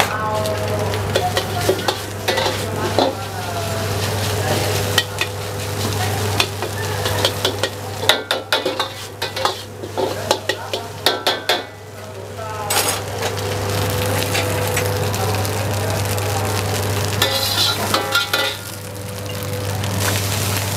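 Rice being stir-fried in a wok: a steady sizzle, with the metal wok ladle scraping and clanking against the pan in quick strokes that are busiest about halfway through. Under it runs a steady low hum.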